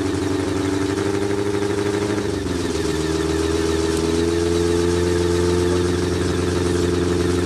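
Hill-climb sports prototype's racing engine idling, the engine bay open. About two seconds in the idle sags briefly, then picks up and holds steady a little higher.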